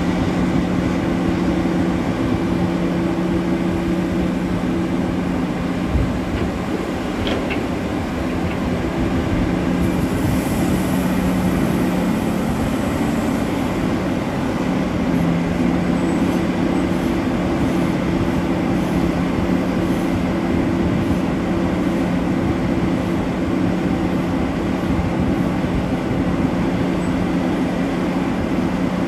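Heavy mining machinery running steadily, a deep, even engine drone with a low hum held throughout.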